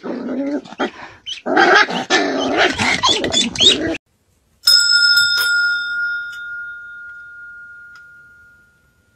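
A short stretch of animal calls, then, after a brief gap, a doorbell chime rings out with a clear tone, struck again about half a second later, and slowly fades away.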